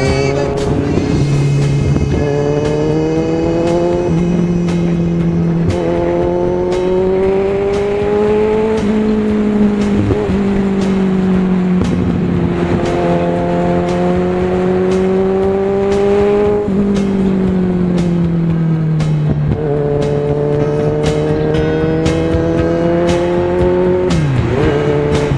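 Motorcycle engine under way, its note climbing and dropping sharply at each gear change, then falling away once as the bike slows before climbing again.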